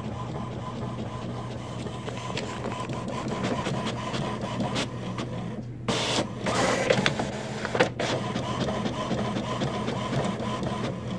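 Inkjet printer running as it prints, its print head carriage moving back and forth with a steady mechanical hum.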